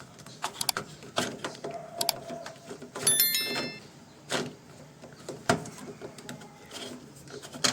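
Scattered clicks and knocks from an LG front-load washing machine, with a quick run of electronic beep tones about three seconds in, as its tub clean program is started.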